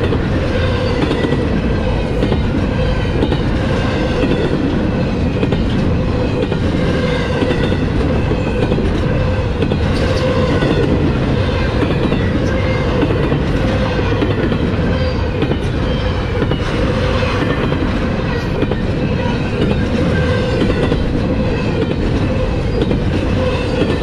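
Freight train's double-stack well cars rolling past at close range: a steady loud rumble of steel wheels on rail, with a repeated clatter over the rail joints and a steady ringing hum.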